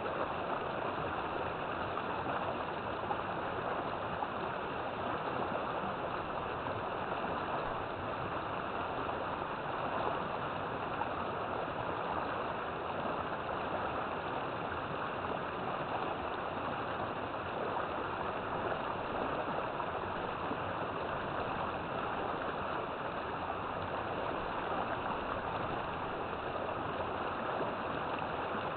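River water flowing and rushing over rocks, a steady even rush.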